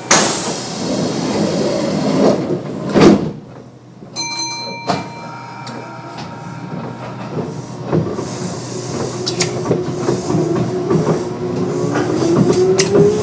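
Kintetsu 9200 series electric train, heard from inside. The sliding doors close with a heavy thud about three seconds in and a short chime sounds. The train then pulls away, its field-chopper-controlled traction motors giving a whine that rises steadily in pitch as it gathers speed.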